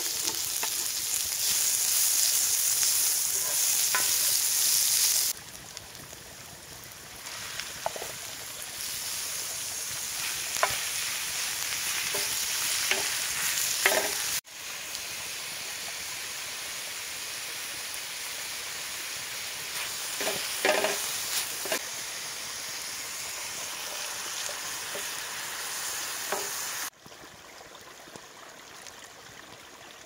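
Chopped onion sizzling loudly as it hits hot fat in a large metal pan, then quieter frying with scattered pops and clicks. After a cut, diced pork sizzles steadily in the pan, and near the end the sizzle drops to a quieter hiss.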